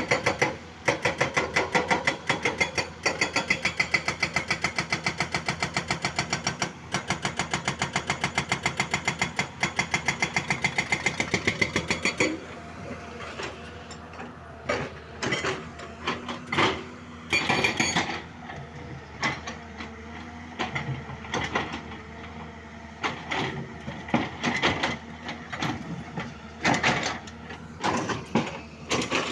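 Hyundai 215 excavator working: a fast, even mechanical clatter for about the first twelve seconds, then irregular clanks and knocks over a quieter steady run.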